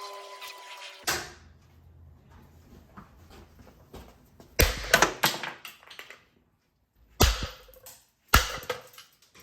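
Sharp knocks and clatters of tools and parts being handled while a drill press motor is taken apart. There is one about a second in, a quick run of several in the middle, and two single hits near the end.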